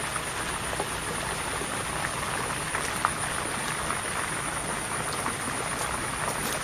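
Steady chorus of frogs calling, a dense even mass of small croaks and clicks, with a continuous high thin whine over it.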